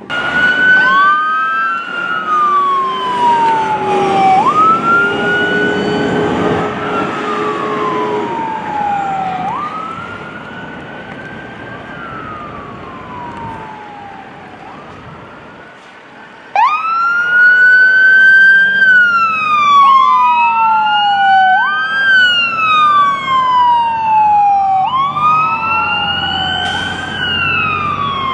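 Emergency vehicle electronic sirens on wail, each cycle sweeping up quickly and falling slowly. About sixteen seconds in, a louder siren cuts in abruptly from a yellow box ambulance responding with lights on, with a low engine rumble beneath it.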